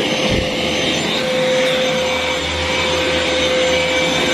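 Vax cordless stick vacuum running: a steady motor whine over rushing air. A low hum comes in about half a second in and drops away near the end, as the brush bar is switched on and off.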